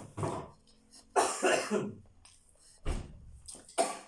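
A woman coughing three times while eating: a longer cough about a second in, then two short, sharp coughs.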